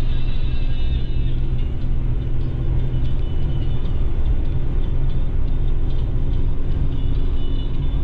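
Steady road noise of a car at highway speed heard from inside the cabin: a low engine and tyre rumble, with a faint high whine that fades about a second in and comes back later.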